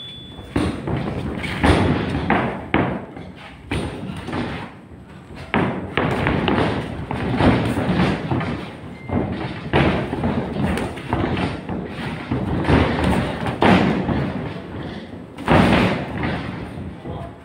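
Irregular thuds from a boxing sparring session: gloved punches landing and the boxers' feet striking the ring's canvas floor, one every second or so.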